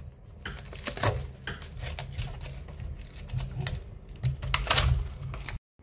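Plastic clingfilm crinkling and crackling in irregular clicks as hands pull and tear it off a tray of raw chicken. The sound breaks off abruptly near the end.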